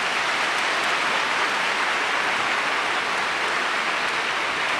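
Congregation applauding: a steady wash of clapping that swells up just before and holds even.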